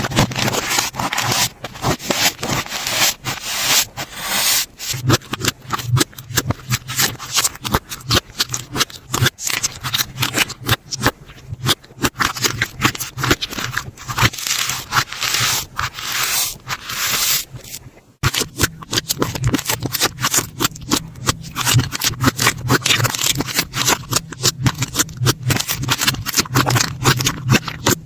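Slime being squeezed, poked and stretched by hand, making dense, irregular crackling, popping and sticky clicking sounds. A short break about 18 seconds in.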